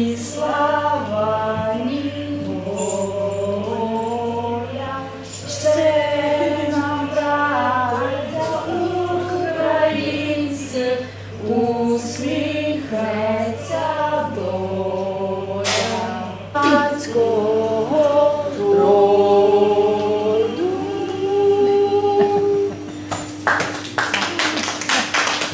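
A small group of women singing a song together without instruments, with long held notes. The song ends near the close and hand-clapping applause breaks out.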